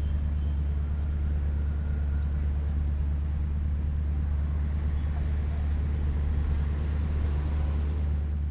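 8mm film projector running: a steady low hum with a whirring noise over it.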